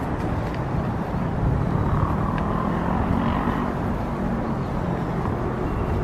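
Steady road traffic noise, swelling briefly about two to three seconds in.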